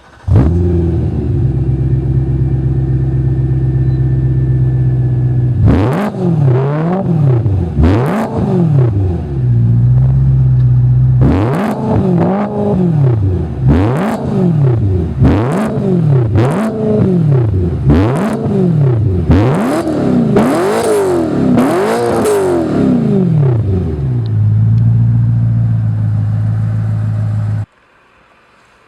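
BMW E90 M3's 4.0-litre V8 through a Gintani race exhaust, idling and then revved again and again in quick blips, each rev rising and falling. It settles back to idle and stops abruptly near the end.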